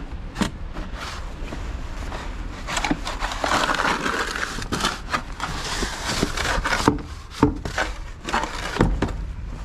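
Crunching and scraping in snow, with a few sharp knocks along the way.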